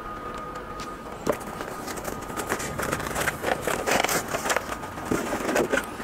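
Cardboard packaging and a plastic-covered keyboard being handled and lifted from the box: scattered rustles, crinkles and light knocks that grow busier from about a second in.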